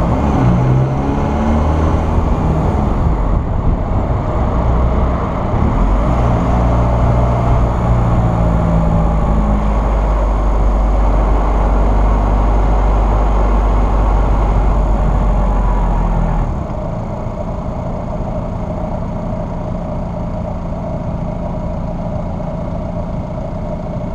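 Car engine and road noise picked up by a hood-mounted camera while driving: engine pitch rises and falls over the first couple of seconds, then a heavy steady low rumble under the engine, dropping to a quieter, even running sound about 16 seconds in.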